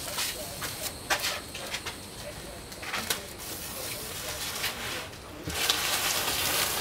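Blue painter's tape and brown paper being handled. There are scattered crackles and clicks as the tape is pulled and stretched, then a loud papery rustle near the end.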